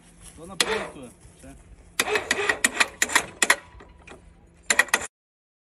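Electric cable hoist on a homemade well-drilling rig running with a steady low hum. Sharp knocks come in a quick cluster about two seconds in and again near the end, and a voice is heard briefly about half a second in. Everything cuts off suddenly near the end.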